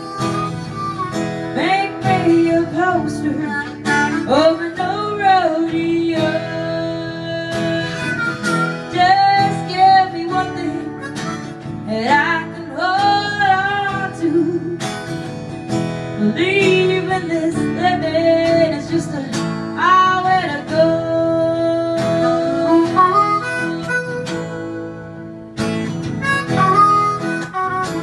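Harmonica solo over acoustic guitar accompaniment, its notes bending and sliding in pitch.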